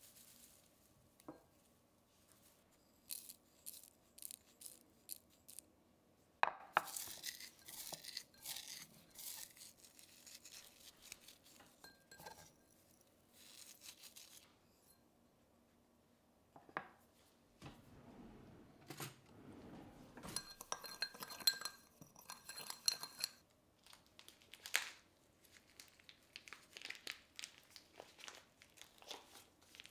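Dried oregano, sage and thyme leaves crackling and rustling as they are crumbled by hand into a small glass jar, with light glass clinks. Near the end, the plastic wrap on a packaged whole chicken crinkles.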